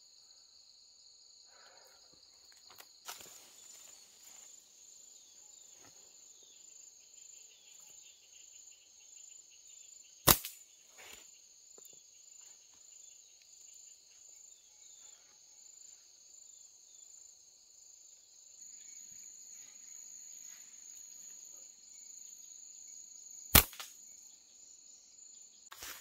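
Two sharp snaps of a slingshot being shot, about thirteen seconds apart, over a steady high buzzing of insects.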